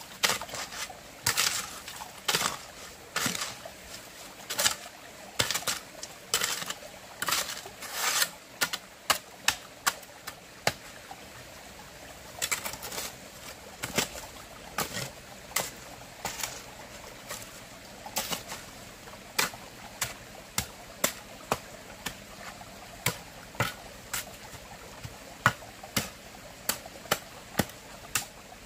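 Repeated sharp knocks, mixed with longer scraping sounds in the first half. From about eighteen seconds in they settle into single, evenly spaced knocks, roughly one every 0.7 seconds.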